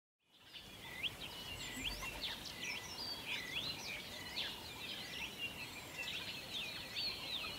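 Several birds calling at once: a busy, overlapping run of short whistles and chirps that swoop up and down in pitch.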